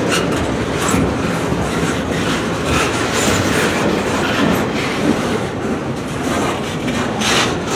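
Freight train cars rolling past close by: a steady heavy rumble of wheels on rail, with irregular clacks as the wheels cross rail joints.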